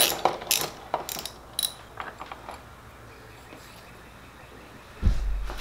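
Hand ratchet with a socket extension clicking in short, irregular strokes as a bolt is worked, then a dull low thump about five seconds in.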